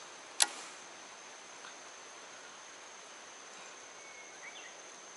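A single sharp click about half a second in, then steady faint outdoor ambience: an even hiss with a thin, high, steady tone running through it and a couple of faint short chirps near the end.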